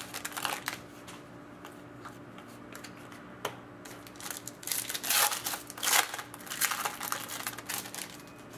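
Sports trading cards and their foil pack wrapper being handled: bursts of rustling and crinkling as the cards are pulled out and shuffled, with a single sharp click about three and a half seconds in, over a faint steady hum.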